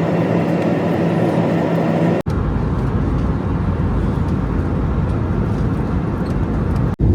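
Steady vehicle running noise, an even rumble with a low hum, in two clips joined by a cut about two seconds in.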